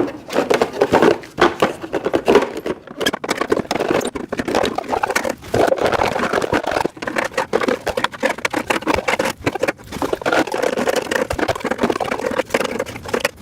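Rack parts being handled and fitted during assembly: a busy run of quick clattering knocks and scraping.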